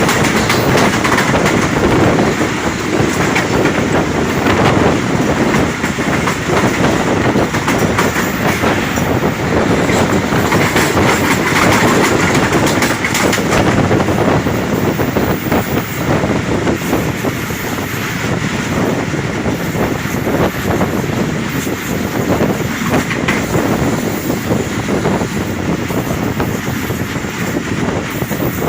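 Subak Raftar railcar running at speed on the rails: a loud steady rush with wheels clattering over the rail joints, easing off a little partway through.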